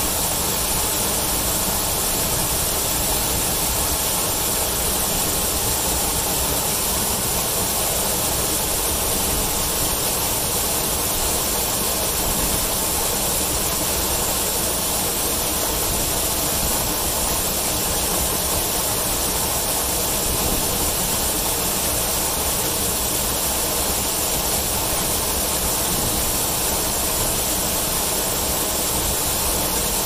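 Waterfall heard close up, water falling onto rocks and splashing into a pool in a steady, even rush.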